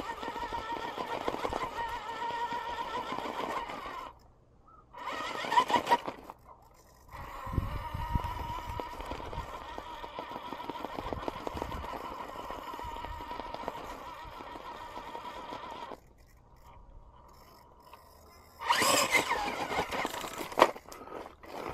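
RC rock crawler's brushless motor and geared drivetrain whining as it crawls over rock, in stop-start spells: a steady run, a short burst, a long steady stretch, then a louder burst near the end with the pitch bending up and down.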